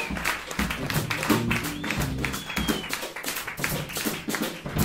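Live jazz band playing a blues, with drum kit strokes and a bass line carrying the music and no singing.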